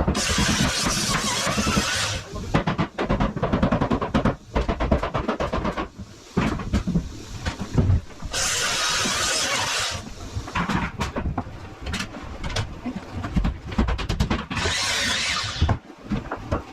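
Power saw cutting 2x8 lumber rafters in three cuts of about two seconds each, amid many sharp knocks from jobsite work, with music underneath.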